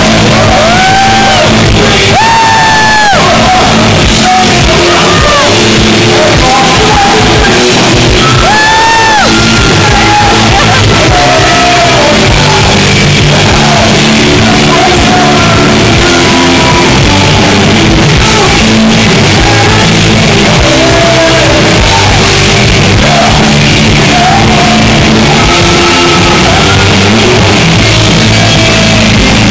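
Rock band playing live, very loud: electric guitar through Marshall amplifiers under a lead singer singing and shouting, with long high held notes in the first ten seconds or so.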